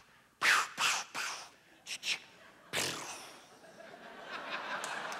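Toy hypnotist's ray gun fired repeatedly at volunteers: a quick string of about seven short zapping shots over the first three seconds. Audience applause and laughter then build up from about halfway through.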